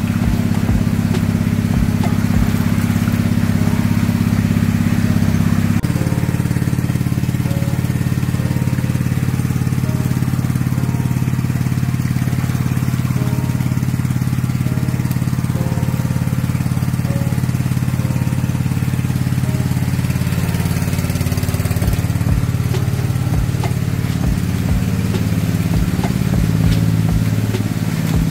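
A small engine running steadily. Its tone changes about six seconds in and grows uneven over the last several seconds, when a few low knocks are heard.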